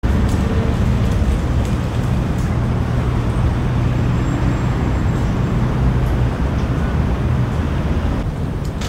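Steady rumble of motor traffic, with a low engine hum that fades out about six seconds in.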